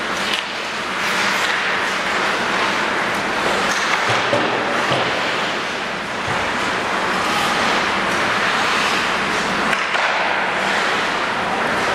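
Steady rushing noise of an indoor ice hockey rink during play, with skate blades scraping the ice and a few faint clicks of sticks or puck.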